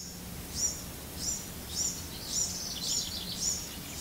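A bird singing: a run of short, high chirps, each dropping at its tail, repeated about twice a second over a steady low background hum.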